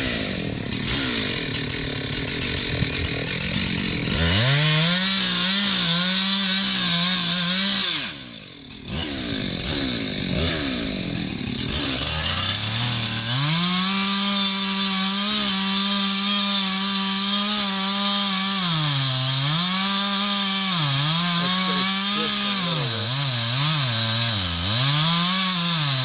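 Two-stroke chainsaw cutting into a rotten tree trunk, running at full throttle, easing off briefly about a third of the way in, then held at full throttle again. Near the end the revs drop and rise several times in quick succession.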